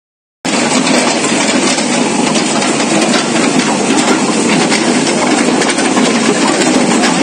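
JCB backhoe loader's diesel engine running steadily, a loud, even noise that starts about half a second in.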